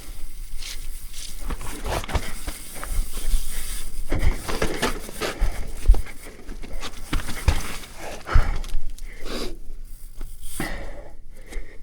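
Mountain bike rattling and knocking over rough, wet trail ground, with irregular thuds from the tyres and suspension hitting roots and rocks and a constant rumble of riding noise. It dies down near the end as the bike slows.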